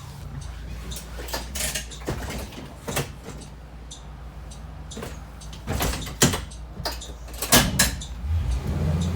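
Clunks and rattles inside a Blue Bird Vision school bus over the low hum of its engine. Near the end the engine note swells as the bus pulls away.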